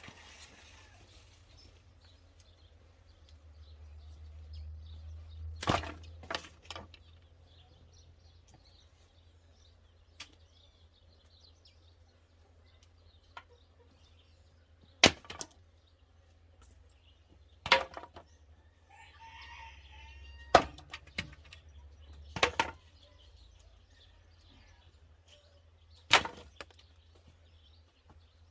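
A series of single sharp knocks or strikes, spaced a few seconds apart, about seven in all, with a short bird call about two thirds of the way through.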